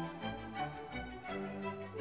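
Background music of slow, held instrumental notes that change every half-second or so.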